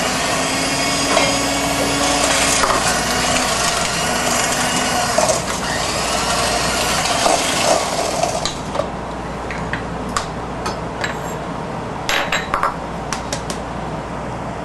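Electric hand mixer running, its whirring beaters scraping round a stainless steel bowl as they cream softened butter and sugar; it stops about eight seconds in. A few sharp taps and clicks follow as eggs are cracked on a metal bowl.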